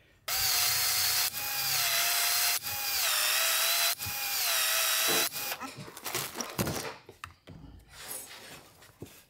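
Cordless PEX expansion tool running in four bursts of a little over a second each as it expands the end of PEX tubing to take a fitting, its motor whine dipping and rising within each burst. Then come a few light clicks and handling noises as the tubing is worked onto a brass fitting.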